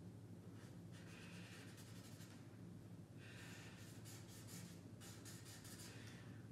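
A black pen scratching faintly on paper in short strokes as a mouth and whiskers are drawn, with longer runs of strokes about a second in and again from about three to five seconds in. A low steady hum runs underneath.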